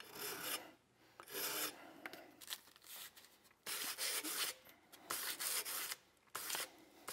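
Hand file scraping across the front edge of a metal revolver trigger guard held in a vise, beveling it: about seven separate strokes, roughly one a second.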